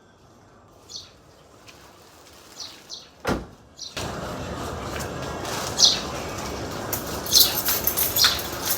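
Steady background noise that grows suddenly louder about four seconds in, with a single thud about three seconds in and several short high chirps scattered through it.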